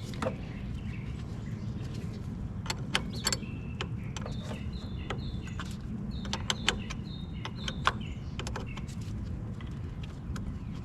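Scattered metallic clicks of a 1/2 inch wrench working the nut on a car battery's positive terminal clamp, over a steady low rumble. About four seconds in, a bird chirps a run of short, repeated notes for a few seconds.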